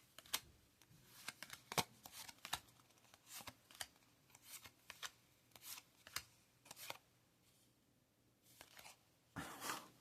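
Yu-Gi-Oh trading cards being flipped through by hand: a string of short card snaps and slides, roughly two a second, with a longer rustle near the end.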